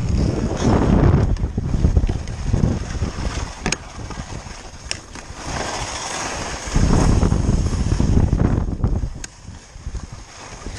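Wind buffeting the microphone in gusts, a low rumble that swells and fades, strongest at the start and again in the second half. A few sharp clicks sound over it.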